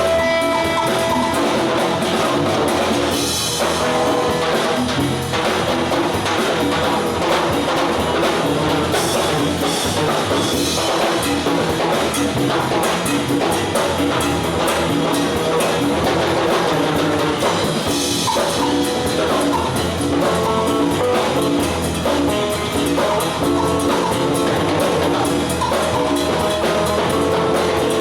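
Live band playing an instrumental: guitar lines over a drum kit keeping a steady beat, with cymbal crashes a few seconds in, around ten seconds and near the middle.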